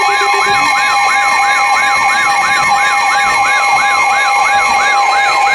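Emergency Alert System alert tone: a steady two-tone alarm with a fast siren-like wail sweeping up and down over it, about three and a half sweeps a second. It signals the start of a new severe thunderstorm warning.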